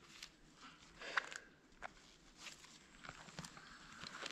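Faint rustling of backpacks and clothing, with a few soft clicks, as a child's small rucksack is taken off. Soft footsteps on grass.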